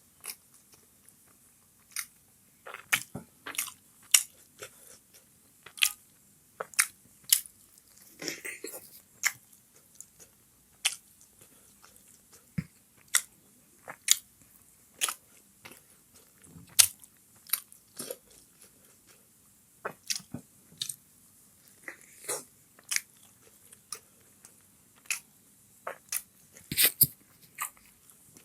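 Close-miked chewing of chicken momos: short wet mouth clicks and smacks, irregular, roughly one or two a second.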